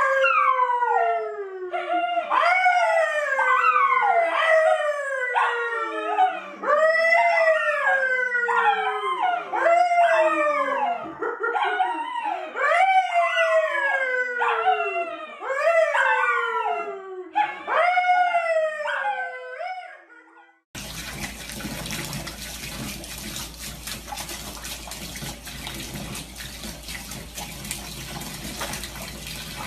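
A dog howling: a long run of loud, pitched wails, each sliding down in pitch, one after another for about twenty seconds. It then cuts to steady running water, like a tap running or a bath filling.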